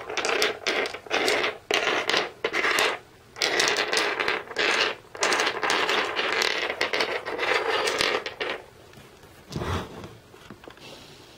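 Small toy plates and cups being scraped and clattered on a wooden tabletop as a hand gathers them up, in a run of short bursts. It goes quiet after about eight and a half seconds, and there is one soft knock near the end.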